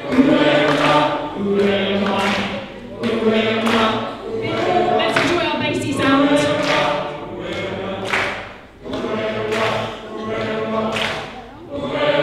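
Choir of mixed men's and women's voices singing unaccompanied, in short held phrases of about a second each that repeat with brief breaths between them.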